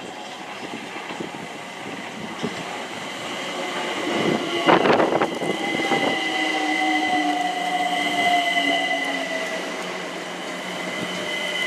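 London Overground Class 378 electric multiple unit running into the platform and braking. There is a loud rush as the front passes about five seconds in, then a motor whine that slowly falls in pitch, over a steady high-pitched squeal from the brakes and wheels.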